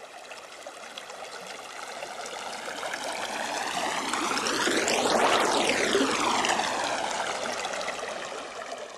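Rushing-water sound effect with a sweeping, jet-like whoosh. It swells to a peak about halfway through and then fades away.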